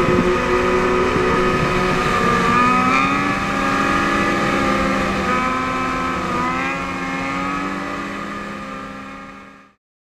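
Several sport-bike engines running and revving, their pitches rising and falling as riders hold wheelies. The sound fades out over the last two seconds.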